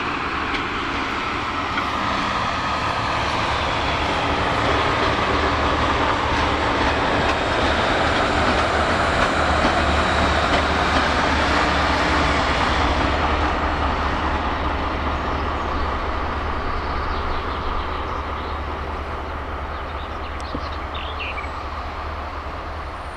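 Diesel locomotive in NIAG livery passing by light, its engine drone and wheel noise on the rails growing louder as it approaches, peaking as it passes about halfway through, then fading as it moves away.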